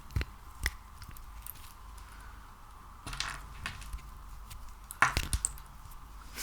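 Hands working a sticky material close to the microphone: scattered sharp clicks and crackles, with a short cluster about three seconds in and the loudest burst about five seconds in.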